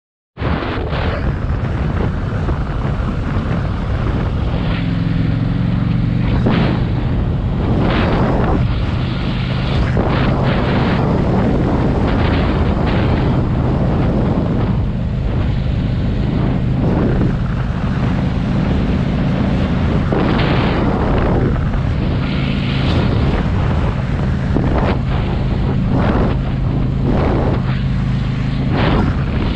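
Adventure motorcycle engine running at low road speed, its note shifting a few times as the rider changes speed, with gusts of wind buffeting the microphone.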